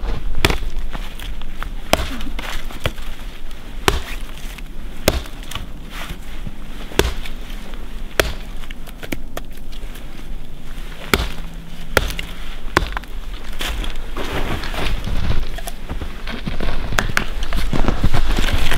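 Hatchet chopping a dead branch into firewood lengths: sharp, single wooden chops at irregular intervals, roughly one a second.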